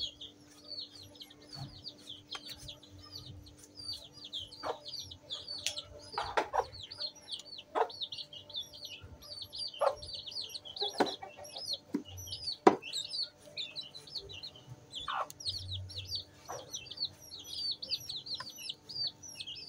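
Wooden pestle pounding overripe bananas in a plastic basin: irregular dull knocks, roughly one every one to two seconds, over constant high chirping of birds.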